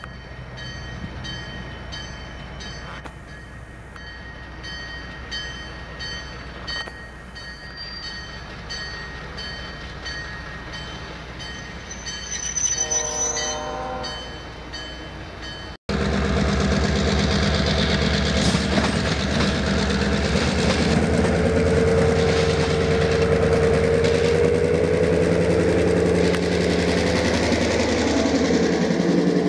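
Diesel passenger train approaching with a bell ringing about twice a second, and a short horn blast about 13 s in. After a brief dropout, the EMD E8 diesel locomotive and its passenger cars pass close by, loud and steady, their wheels clicking over the rail joints.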